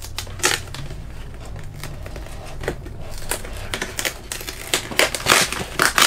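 Box packaging being opened and handled by hand: crinkling and rustling with many small clicks and crackles, louder in the last second or so.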